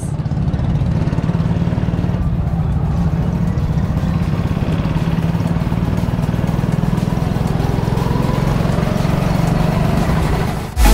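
Go-kart engines running steadily, a low continuous drone, with a rising engine whine in the last few seconds as a kart accelerates.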